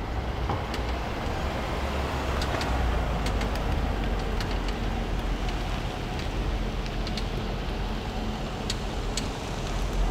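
Range Rover SUV driving slowly over paving and drawing up, its engine and tyres making a steady low rumble, with a few sharp clicks.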